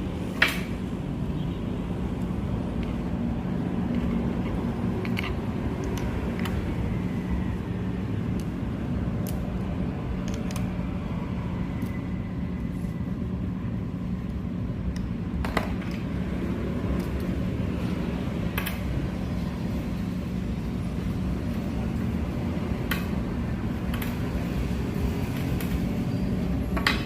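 Scattered small clicks and taps of screws and plastic laptop parts being handled while a laptop's speaker is fitted, over a steady low hum.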